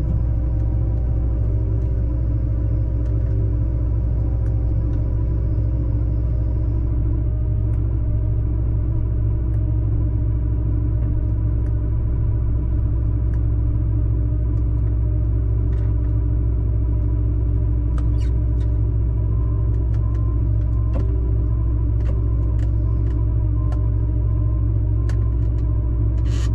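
A heavy farm vehicle's engine running at a steady speed while driving, a deep even drone with a few faint clicks and rattles on top.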